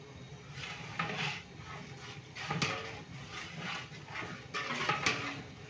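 Sliced shallots frying in oil in a large aluminium pot, sizzling and spitting in uneven bursts, with a few sharp clicks.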